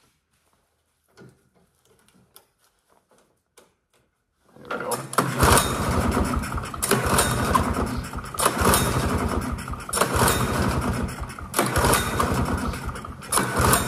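1973 Polaris Colt's single-cylinder two-stroke snowmobile engine being pull-started, starting about four and a half seconds in after a few faint clicks: repeated yanks on the recoil starter, surging about every one and a half to two seconds, the engine cranking over without catching. The owner traces the hard starting to no spark.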